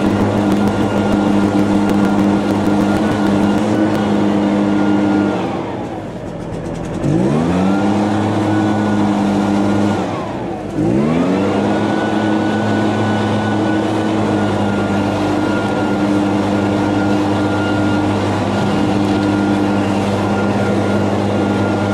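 Echo PB-580T backpack blower's two-stroke engine running steadily at high throttle. Twice, about five and ten seconds in, the throttle is let off and the engine drops toward idle, then revs back up within a second or two.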